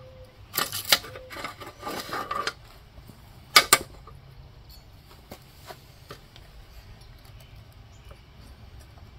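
Metal hand tools clinking and clattering as they are handled and set down: a run of rattling clinks in the first couple of seconds, then two sharp clinks, then a few faint ticks.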